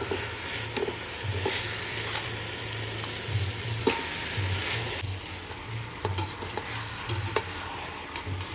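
Chicken and masala frying in oil in a pan, a steady sizzle, stirred with a ladle that knocks and scrapes against the pan every second or so.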